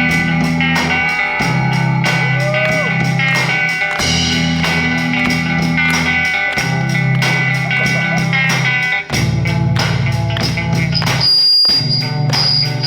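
Instrumental intro of a rock song: guitar and drums over a steady beat of about four strokes a second.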